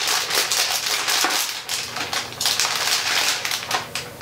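Metallized anti-static shielding bag crinkling and crackling as a motherboard is worked out of it.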